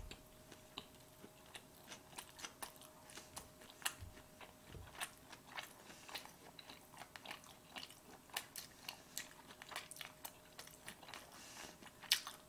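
Quiet close-up chewing of a mouthful of sushi: faint wet mouth clicks and smacks at an irregular pace.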